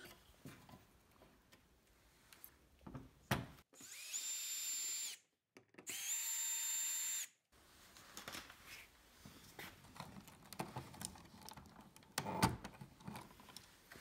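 Cordless drill/driver run twice, each time for about a second and a half with a steady high motor whine, backing out the mounting screws of a wall light switch. Faint clicks and handling noise follow near the end.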